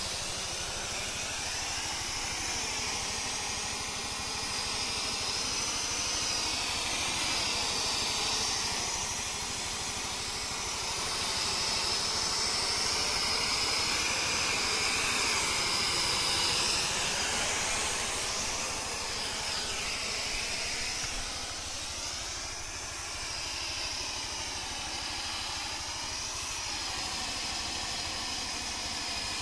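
Steady hiss of a high-pressure hand spray gun jetting fine chemical mist, its tone drifting up and down as the jet is swept through the branches. An engine, the HTP sprayer's 5 hp diesel, runs underneath.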